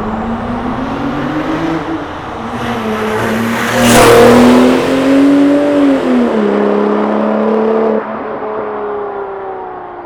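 Porsche 911 (997) Turbo's twin-turbocharged flat-six running through a custom-built exhaust with made-to-fit mufflers. The engine note rises under acceleration and is loudest about four seconds in. Its pitch drops near six seconds, and it goes quieter at about eight seconds.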